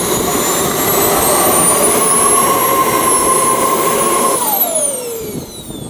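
Model jet turbine (JetCat) in an RC F-5E running on the ground with a steady high whine, then shut down about four and a half seconds in, its pitch falling fast as it spools down.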